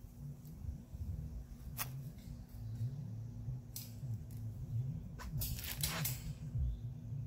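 A few sharp clicks and snips from hands fastening bean vines to a wire cattle panel trellis, spaced out at first and then in a quick cluster a little before the end, over a low steady hum.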